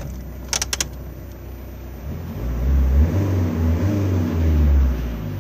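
Small car's engine heard from inside the cabin, revving up about two seconds in and held high for a few seconds before easing off near the end. A few sharp clicks come just before, about half a second in.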